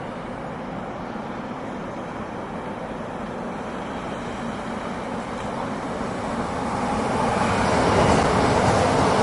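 A train approaching, its rumble growing steadily louder over the last few seconds as it draws near.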